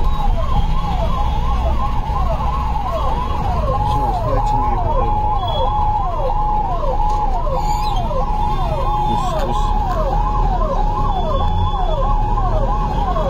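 Ambulance's electronic siren repeating a short cycle, holding one pitch and then dropping, about every 0.7 seconds, over the low rumble of the vehicle's engine and road noise heard from inside the cab.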